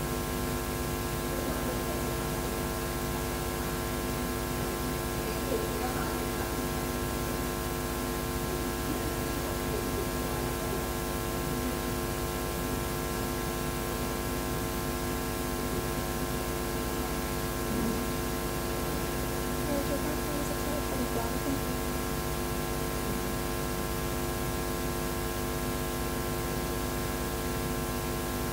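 Steady electrical mains hum with hiss, a buzz of several held tones that does not change. Faint voices murmur briefly now and then.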